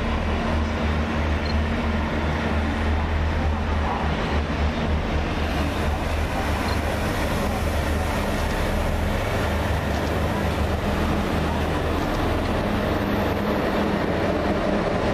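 SNCF electric locomotive hauling Corail passenger coaches rolling past on the platform track: a steady low rumble of wheels on rails with a constant hum from the locomotive.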